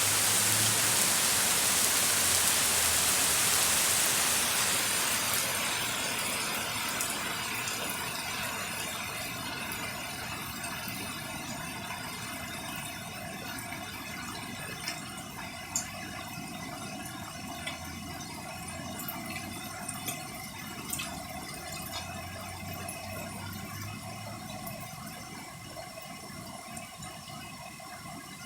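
Heavy rain pouring with a steady hiss that eases off after about five seconds into lighter rain, with scattered drips ticking and a faint steady hum underneath.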